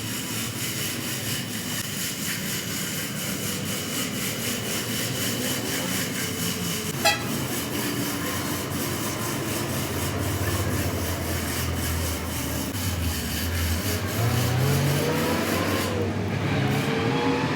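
Truck engine running while the truck is manoeuvred, with one sharp click about seven seconds in and pitch that rises and falls near the end.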